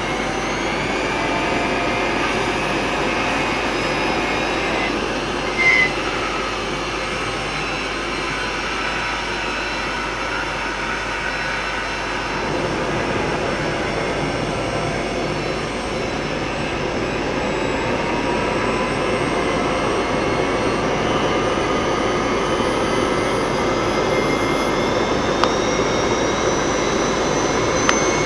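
A homemade tin-can jet engine burning gas with a steady roar, its compressor impeller spun by a high-speed drill whose whine rises in pitch through the second half as the speed is turned up towards 35,000 rpm. A brief click sounds about six seconds in. The impeller is driven by the drill rather than by its own turbine, and the engine gets too little compression to make thrust.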